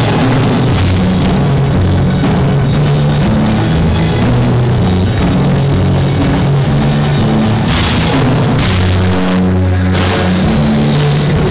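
Rock band playing a song at rehearsal: drum kit with cymbal crashes over a moving bass line, the cymbals loudest in the last few seconds.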